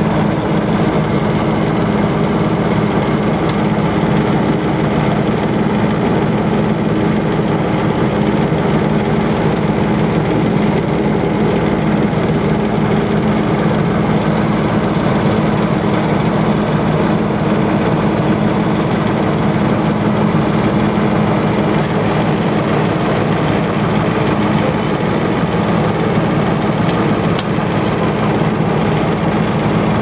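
A small motorboat's engine running steadily as the boat moves under way, an even, unbroken drone.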